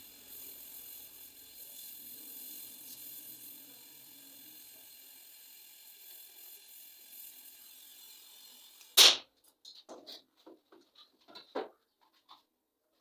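A faint hiss, then about nine seconds in a single sharp knock, followed by a scatter of lighter clicks and taps.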